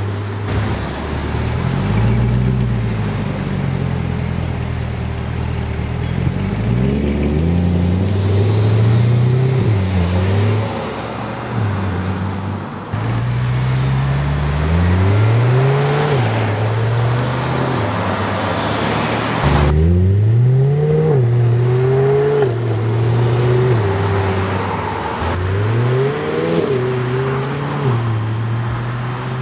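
Camouflaged mid-engine Chevrolet Corvette prototype's engine accelerating hard, its pitch climbing and dropping back again and again as it shifts up through the gears. The sound is several drive-bys joined with sudden cuts.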